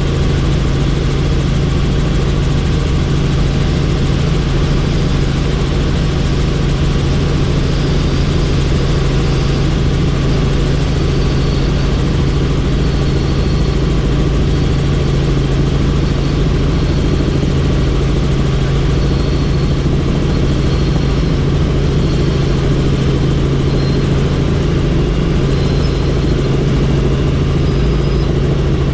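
Helicopter engine and rotor running steadily, a constant loud drone with a strong low hum that does not change.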